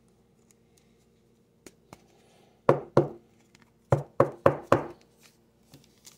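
Hard knocks on a tabletop as cards in rigid plastic toploaders and a foil pack are handled and set down. Two knocks come close together about three seconds in, then four quicker ones a second later.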